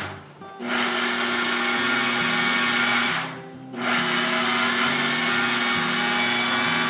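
Food processor motor pulsed in two runs, stopping for about half a second about three seconds in, as it cuts softened butter into flour and spices for biscuit dough.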